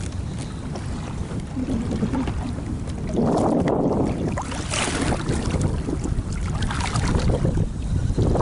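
Water splashing and sloshing around a kayak, loudest in swells about three seconds in and again near the end, over a steady low rumble of wind on the microphone.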